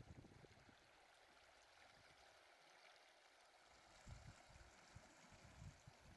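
Near silence: faint steady room hiss, with a few soft low bumps in the second half.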